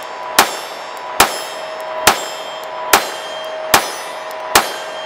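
Sig P365 XMacro 9mm pistol fired six times at an even pace, about one shot every 0.8 seconds, with a steady metallic ringing holding between the shots and after the last one.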